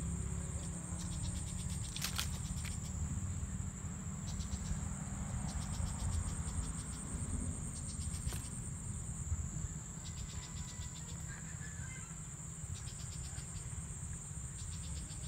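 Insects droning with one steady high-pitched trill, joined now and then by bursts of rapid chirping pulses, over a constant low rumble on the microphone. Two sharp clicks stand out, about two seconds in and again around eight seconds.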